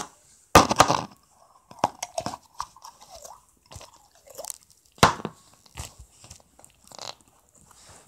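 Homemade glitter slime being squished and pressed by hand, giving sharp wet crackles and pops. They are loudest about half a second in and again near five seconds in. A faint wavering whine runs through the middle.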